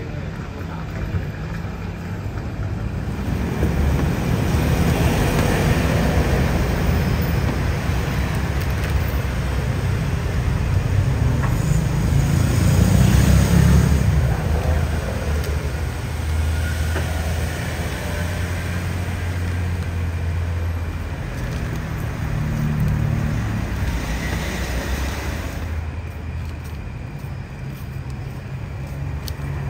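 Street traffic running past, a steady low rumble that swells and eases as vehicles go by, loudest about halfway through.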